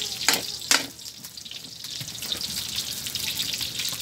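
Pork belly cubes sizzling in their rendered fat in a steel wok, the fat being rendered out of the pork. A metal spatula knocks against the wok twice under a second in, then the sizzling goes on steadily.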